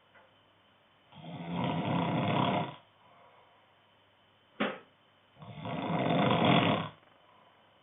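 A man snoring in his sleep: two long snores about four seconds apart, each lasting over a second and a half, with a short sharp sound between them.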